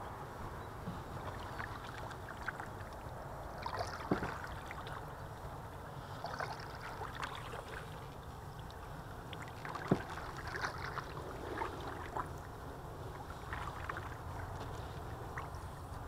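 A small wooden boat moving through calm river water: water lapping and trickling along the hull, with scattered small splashes and knocks, over a steady low rumble.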